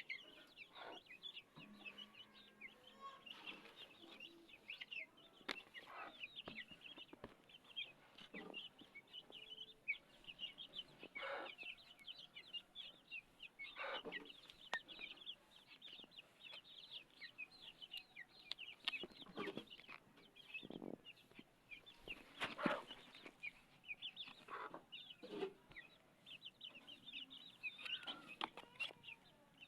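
Chickens clucking every few seconds, over a continuous chatter of short, high-pitched peeps; the loudest cluck comes a little past the middle.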